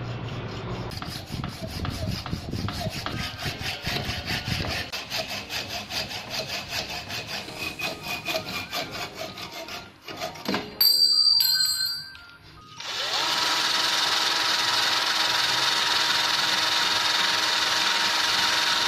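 Hacksaw cutting a metal brake caliper bracket in fast, even back-and-forth strokes for about ten seconds. After a short loud burst, a power tool's cut-off disc spins up with a rising whine and runs steadily, grinding through the bracket.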